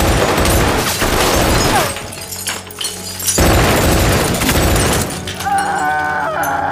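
Automatic gunfire in two long, heavy bursts, the first ending about two seconds in and the second starting about a second and a half later, with shattering mixed into the shots. Near the end the shooting stops and a sustained musical chord comes in.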